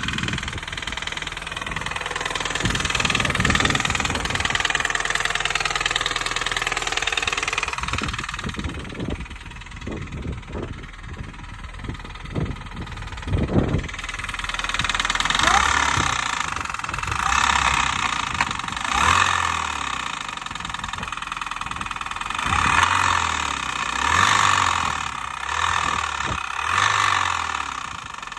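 The supercharged 1.6-litre four-cylinder engine of a 2005 Mini Cooper S (R53) running with a clapping noise, heard as a cluster of sharp knocks near the middle. The engine sound swells and eases several times in the second half.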